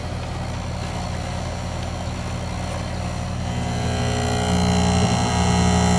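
Goodman outdoor HVAC unit running with a steady mechanical hum. The hum grows louder, with higher whining tones joining, about four seconds in.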